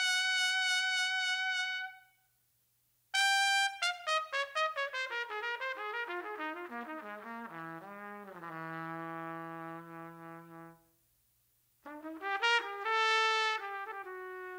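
Solo trumpet music: a long held high note, a short pause, then a slow phrase stepping down to a low held note. After another pause, a new phrase begins near the end.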